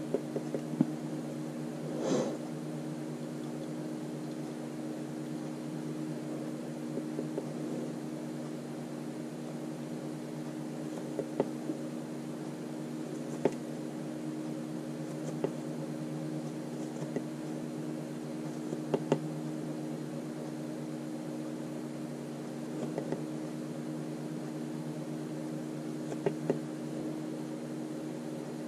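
Steady mechanical hum of several low tones, with a few light taps and clicks scattered through it as small objects are handled on the table.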